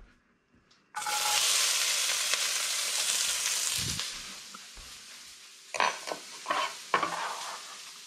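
Chopped carrot dropped into smoking-hot oil in a wok: a sudden loud sizzle about a second in that holds for a few seconds, then dies down. Near the end come a few short scrapes, a knife on a wooden cutting board.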